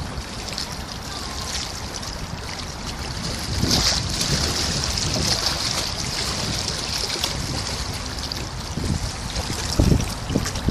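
Wind buffeting the microphone over river water lapping against a stone bank, with a hiss that swells for a few seconds about four seconds in and gusty low thumps near the end.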